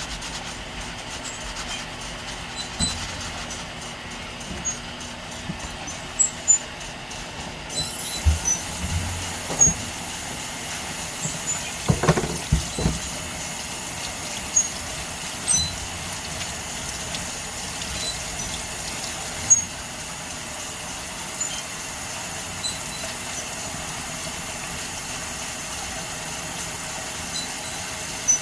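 Tap water running while a freshly cut agate slab is scrubbed clean, with scattered knocks and clicks of the stone being handled. The water's hiss turns brighter about eight seconds in.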